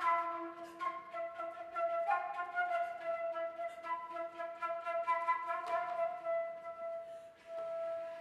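Flute playing long held notes with sharp janggu (Korean hourglass drum) strokes beneath; near the end one note is held on its own.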